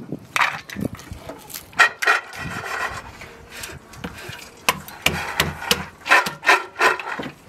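Walnuts being cracked with a hand-held stone on a wooden board: a run of sharp cracks and knocks, with a rubbing rustle of shells in between.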